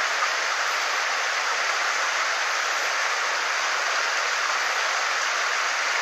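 Mountain stream running over rocks in shallow riffles: a steady, even rush of water.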